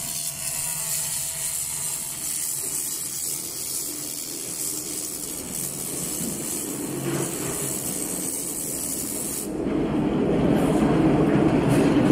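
Handheld laser rust-cleaning head ablating rust from a steel tube: a steady high hiss that cuts off suddenly about three-quarters of the way through as the beam stops. A louder, lower rushing noise follows.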